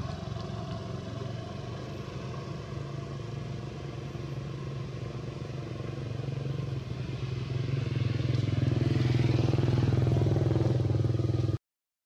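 A motor engine running with a steady low hum, growing louder about eight seconds in, then cutting off suddenly just before the end.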